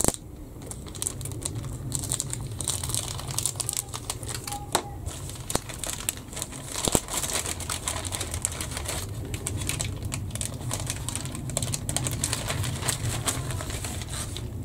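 Clear plastic bag crinkling and rustling in irregular bursts as it is handled and pulled open around a plastic model-kit sprue, with a steady low hum underneath.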